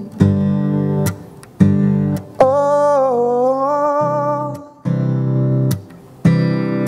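Acoustic guitar strummed in slow chords, one struck about every second and a half, with a man's voice singing one long held "Oh" in the middle.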